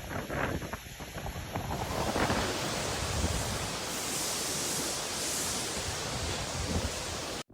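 Strong storm wind buffeting the microphone in gusts, turning into a steady dense rushing noise about two seconds in, which cuts off abruptly near the end.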